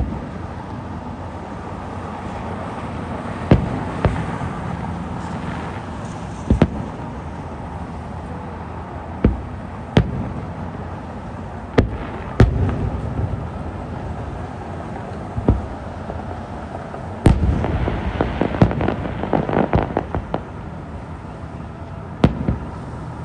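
Aerial fireworks shells bursting at a distance: separate sharp booms every second or two, with a quick run of crackling pops about three-quarters of the way through.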